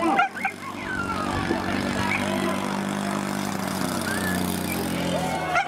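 An engine or motor running steadily at a constant speed, its pitch dipping slightly near the end.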